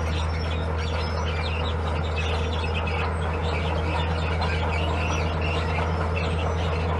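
Diesel engine of heavy earthmoving equipment running at a steady speed, with birds chirping over it.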